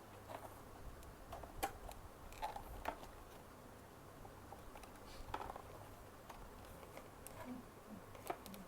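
Faint, scattered clicks and light rustles of hands working at the camera's plastic packaging, trying to get it open.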